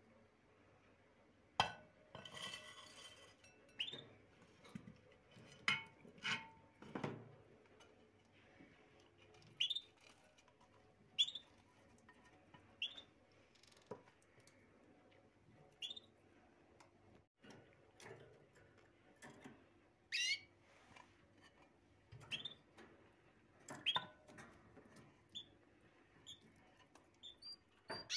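A small caged bird chirping, short single chirps every second or two, with a few clinks of glass dishes being handled.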